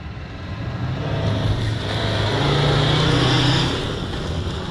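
Volkswagen Touareg SUV driving past on a dirt and gravel track. Its engine grows louder as it approaches, is loudest about three seconds in, then fades as it pulls away.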